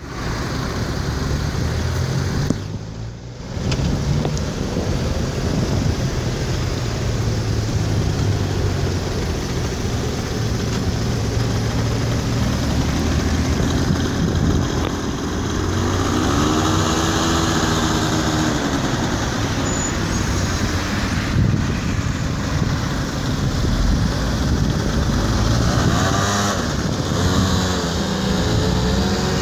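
A small scooter engine running close by over a steady low engine hum, revving up and back down slowly about halfway through and several times more near the end as it pulls away.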